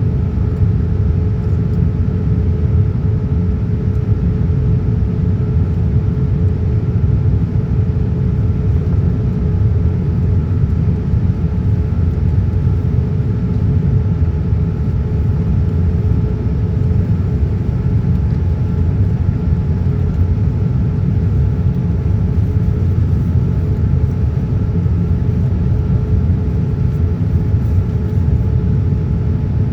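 Steady cabin noise inside a Boeing 787-9 airliner in flight: a dense low rumble of engines and airflow, with a few faint steady hums on top that do not change.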